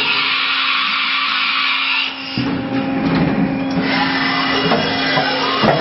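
CNC vertical milling machine running its program: a steady motor hum with hissing noise over it. About two seconds in, the hiss fades and a heavier, rougher low noise takes over.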